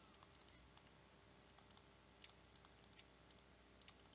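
Near silence with faint, scattered clicks and taps of a stylus writing on a tablet screen.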